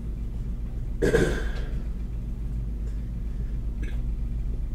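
Steady low rumble of a lampworking bench burner flame running, with a short, louder burst of noise about a second in.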